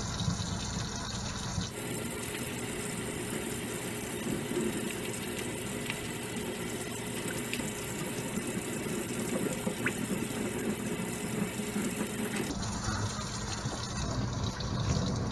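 Kitchen faucet running steadily into a stainless steel sink as wet, shampooed dreadlocks are washed under the stream. The hiss of the water turns brighter about two seconds in and returns to its duller sound near the end.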